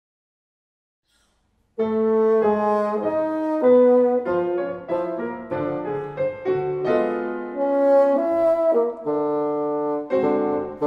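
Bassoon and piano duo starting to play about two seconds in, after near silence: a quick run of changing notes with some longer held ones.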